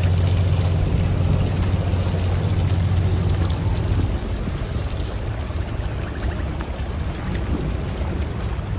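Heavy rain falling steadily on wet paving and puddles, a continuous hiss. Underneath, a low steady hum that stops about four seconds in.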